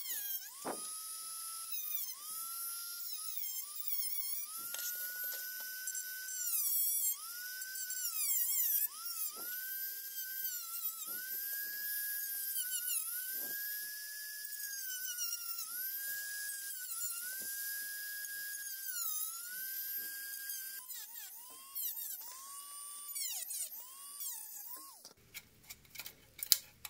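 Handheld rotary tool with a cutting disc cutting window openings in a plastic model car body. It runs with a high whine that dips in pitch each time the disc bites into the plastic and recovers as it eases off. The whine stops shortly before the end, and a few sharp clicks follow.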